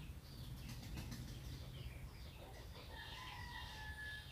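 Faint poultry calls in the background, with one held call lasting about a second near the end.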